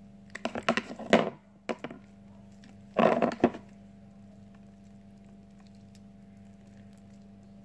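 Homemade glue slime squeezed and pulled apart in the hands, giving two bursts of wet clicking and popping, a longer one near the start and a shorter, denser one about three seconds in. A steady low hum runs underneath.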